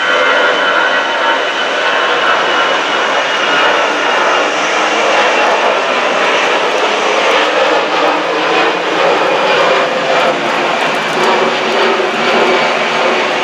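Twin jet engines of an Airbus A320-family airliner at takeoff climb power, making a loud, steady rumbling roar as it passes close overhead. High whining tones are heard in the first few seconds, then sink slightly in pitch and fade.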